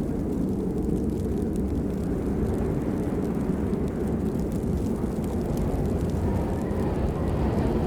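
Steady rainfall: an even, deep rushing noise with faint scattered drop ticks on top.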